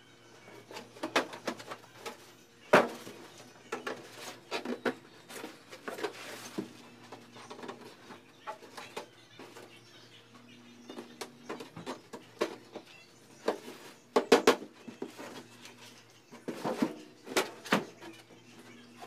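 Irregular knocks, taps and scrapes as a hollow coated box is handled and set in place, with a loud knock about three seconds in and a quick cluster of knocks past the middle, over a faint steady hum.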